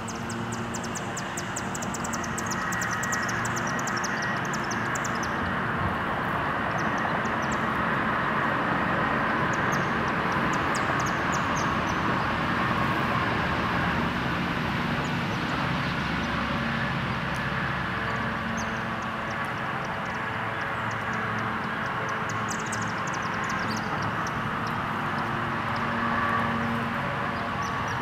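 A distant engine drone that swells over the first ten seconds and then eases off a little, with bursts of rapid high chirping now and then.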